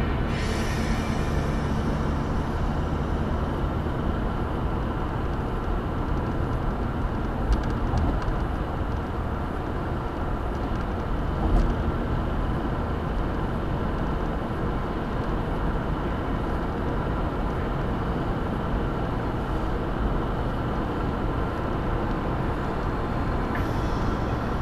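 Steady road and tyre rumble of a car driving at speed, picked up inside the cabin by a dashcam. There is a short thump about eight seconds in and a louder one about twelve seconds in.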